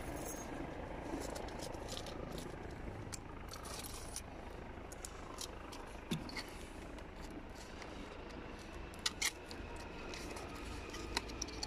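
Small box of collated nail strips being handled and opened by hand: scattered light clicks and metallic rattles, with a few sharper clicks about nine seconds in.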